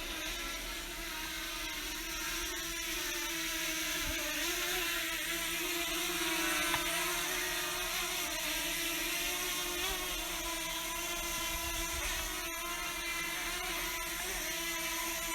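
DJI Mavic Mini drone's propellers whining with a steady, even pitch as it hovers in to land, growing a little louder over the first several seconds.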